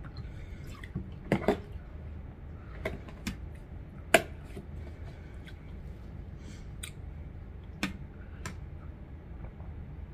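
Juice poured from a small plastic bottle into a glass, then a scatter of sharp clicks and knocks as the bottle, its screw cap and the glass are handled and set down on the table, the loudest about four seconds in.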